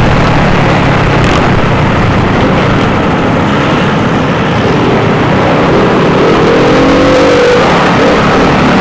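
Motorcycle engines running loud, with a rev climbing in pitch a little past the middle.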